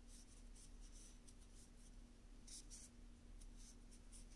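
Faint, irregular scratching and rustling of a metal crochet hook pulling yarn through single crochet stitches, over a low steady hum.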